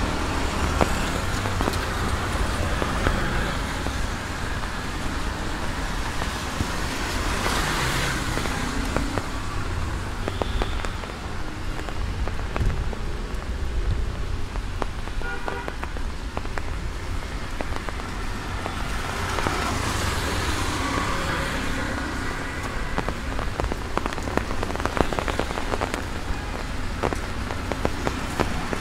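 Steady rain on a wet street with light traffic going by: motorcycles and three-wheeled auto-rickshaws whose tyres hiss on the soaked road. Vehicles swell past twice, about a quarter of the way in and again a little past the middle.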